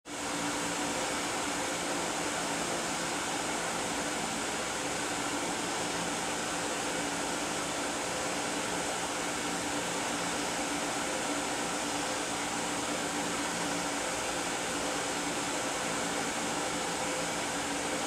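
Steady whooshing hum of a running fan-type machine, with a faint low drone under it, unchanging throughout.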